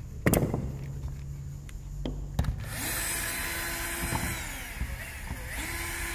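A knock, then about two and a half seconds in a small power tool starts and runs for about four seconds, its pitch dipping midway and picking back up.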